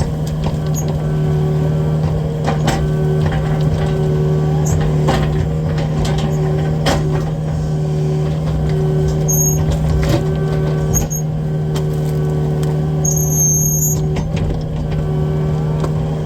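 Excavator's diesel engine running steadily under work, with a constant hum and hydraulic whine, scattered knocks, and a few short high-pitched squeals as the machine sifts through dirt and wood debris.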